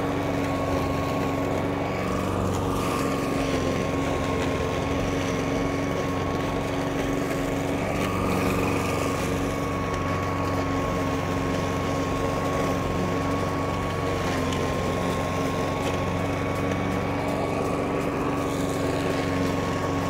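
Hyundai petrol lawn mower's engine running steadily while mowing grass in mulching mode.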